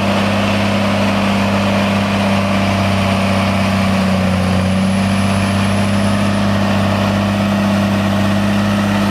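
Heavy-haul truck's diesel engine running steadily, a low even drone that holds one pitch.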